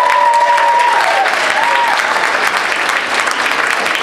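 Audience applauding steadily. A long, high, held tone sits over the clapping for about the first second, with a brief second one shortly after.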